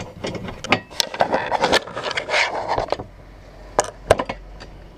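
Small clicks, taps and rubbing as 8-32 acorn nuts are run up by hand onto the studs of a console safe's bracket, busy for the first three seconds, then two sharp clicks near the end.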